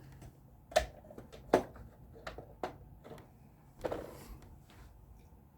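A handful of sharp clicks and light knocks, about five spread over a few seconds, from a small toy car and its packaging being handled and turned over.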